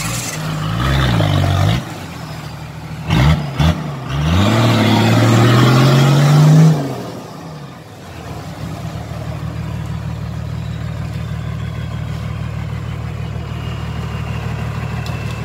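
Toyota Land Cruiser hardtop's engine revving hard as it works through deep mud. There are quick blips about three seconds in and a long climbing rev that breaks off near seven seconds, then the engine settles to a steady, even run.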